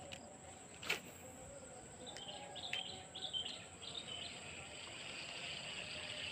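Faint outdoor ambience of birds chirping in short bursts and a steady insect buzz that grows toward the end, with one sharp click about a second in.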